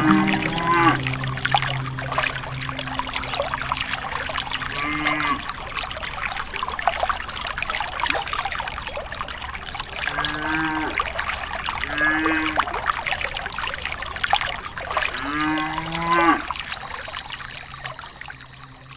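Water trickling and pouring steadily from a miniature hand pump's spout into a small pool, with a cow mooing about five times in short calls that rise and fall.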